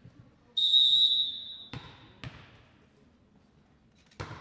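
A referee's whistle blown once for about a second, then a volleyball bouncing twice on the gym floor, with another sharp ball strike near the end.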